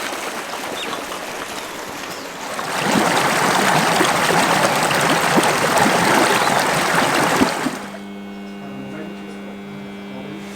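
Rushing, splashing water: a steady noise that grows louder about two and a half seconds in. It cuts off abruptly near eight seconds, and a steady low hum follows.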